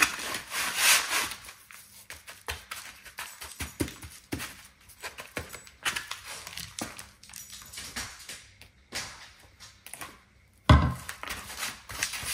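Kitchen handling noises: scattered light clicks, taps and rustles of containers and utensils being handled, with one heavier thump near the end.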